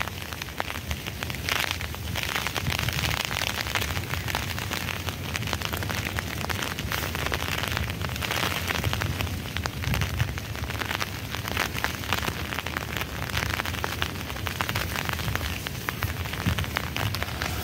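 Wind buffeting the microphone in gusts, with dry reed stalks and leaves rustling and crackling close by.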